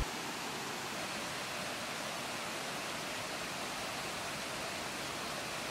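Rocky mountain stream flowing, a steady, even rush of water.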